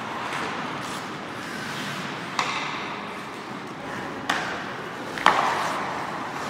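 Three sharp clacks of hockey sticks and puck, about two seconds apart and the last one the loudest, each ringing out in the echo of an indoor ice rink over a steady scrape of skates on ice.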